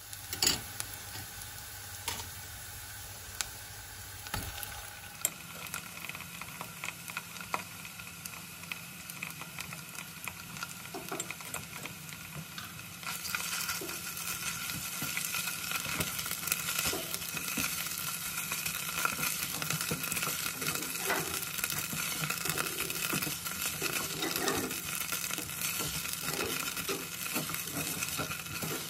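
Diced onions sizzling in oil in a nonstick saucepan, stirred with a silicone spatula that scrapes and taps against the pan. About halfway through, red paste goes in and the sizzling gets louder.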